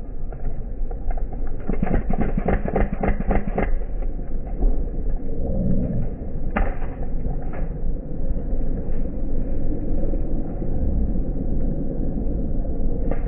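A quick string of about eight sharp airsoft gun shots about two seconds in, and two single shots a few seconds later, over a steady low rumble of wind on the microphone.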